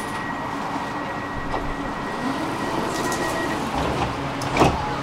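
Tram cabin noise as the tram draws into a stop: a steady running rumble with a thin high whine that fades out a little past halfway, then a single sharp clunk near the end.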